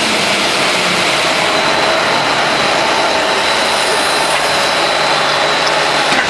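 PVC foam board production line machinery running: a steady, loud mechanical noise with a few thin steady whines held through it.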